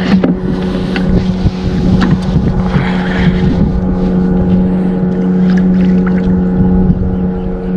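A boat's outboard motor running steadily with an even hum, while wind buffets the microphone. A few faint clicks come through on top.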